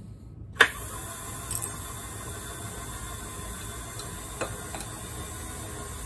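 Knee milling machine's table being lowered under power: a sharp click about half a second in as the feed is switched on, then the drive running steadily as it brings the table down. A few faint metal ticks come from hand tools on the table.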